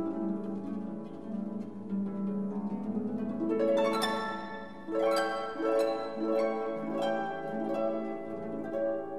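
Background music of plucked strings, harp-like, over a held low note, with a run of plucked notes beginning about three and a half seconds in.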